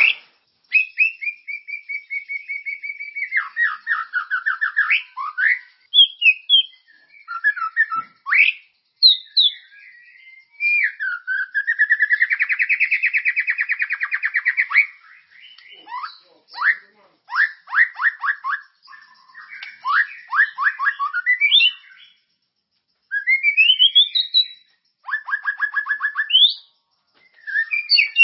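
White-rumped shama (murai batu) singing a full, varied song: clear held whistles, quick upward glides and fast runs of repeated notes, in phrases broken by short pauses.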